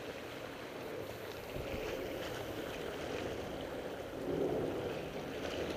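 Steady wind and surf: small waves washing against the boulders of a rock breakwater, with wind on the microphone, swelling slightly about four seconds in.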